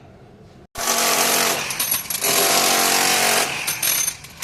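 A power tool running loudly. It starts abruptly about a second in, dips briefly near the end, then comes back.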